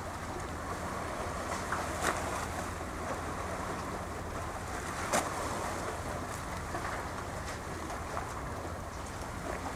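Steady outdoor wind and water noise over a low rumble, with a couple of sharp clicks about two and five seconds in.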